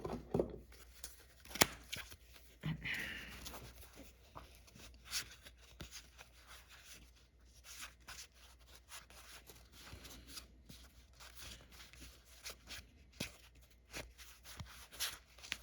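Final Fantasy trading cards being handled and leafed through: faint, scattered clicks and soft sliding of card on card, with a short rustle about three seconds in.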